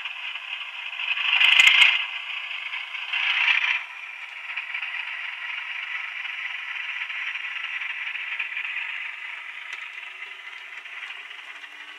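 Model Class 37 diesel locomotive with DCC sound, its small onboard speaker playing a tinny, rattling diesel engine sound as it runs along the track. Two louder swells come about a second and a half in and again at about three and a half seconds.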